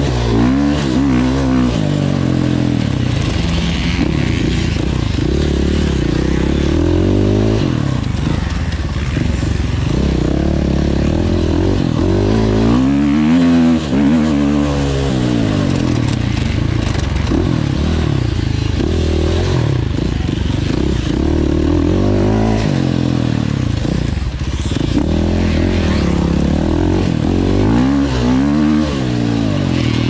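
Enduro motorcycle engine being ridden hard, its pitch rising and falling again and again as the throttle is opened and closed.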